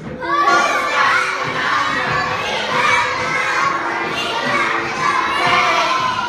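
A group of young children's voices shouting and singing loudly together.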